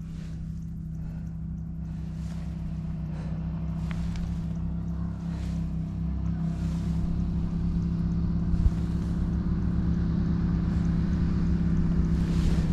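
KTM 690 Enduro's single-cylinder engine running steadily while riding, gradually growing louder, with repeated gusts of wind noise on the microphone.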